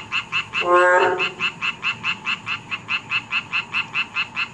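Boreal digging frogs (Kaloula borealis) calling: one low, pitched croak about a second in, over a steady fast train of short, higher frog calls, about six a second.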